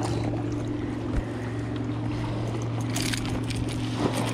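A steady low hum, with a few brief scuffs and knocks on rock and gravel about a second in, around three seconds in and near the end, as a freshly landed bass is handled on the shore.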